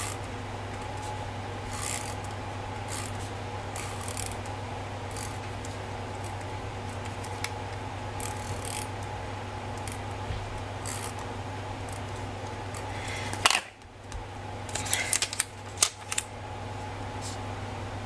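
Short scratchy strokes of a hand-held correction tape roller drawn across planner paper, a second or few apart, over a steady low hum. Near the end come a cluster of louder paper rustles and taps.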